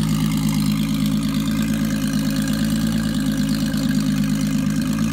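Turbocharged 3.0-litre VR6 engine idling steadily at an even pitch.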